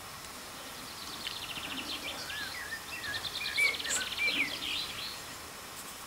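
Songbird singing: a run of short whistled notes mixed with fast trills, from about a second in until about five seconds, over a steady outdoor background hiss.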